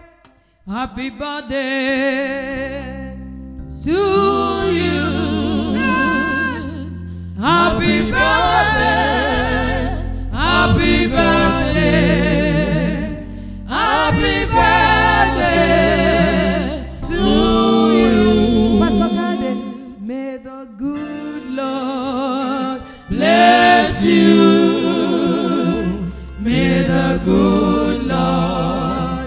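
Gospel music: voices singing in phrases, with a steady bass line underneath.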